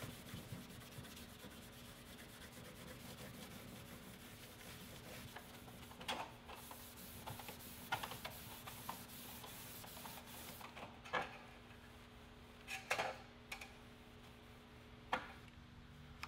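A Scotch-Brite scuff pad rubbed back and forth over aluminium sheet parts, a faint steady scrubbing hiss that scuffs the metal ready for priming. It stops after about ten seconds, and a few light knocks of parts being handled follow.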